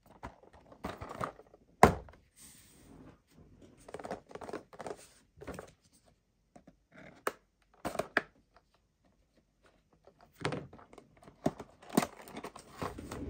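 Cardboard action-figure box being handled by hand: irregular taps, knocks and papery rustles and scrapes, with a sharp knock about two seconds in.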